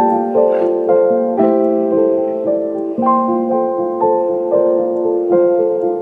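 Background piano music: a slow, gentle melody, its notes struck at an even pace and left to ring and fade.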